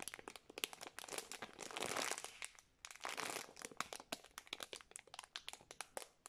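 Clear plastic bag crinkling as it is handled around a foam squishy: stretches of rustle broken by many small sharp crackles.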